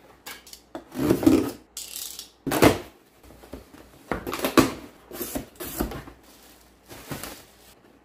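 Cardboard shipping box being handled and opened: a string of scrapes, rustles and knocks of cardboard as the box is shifted and its flaps pulled open.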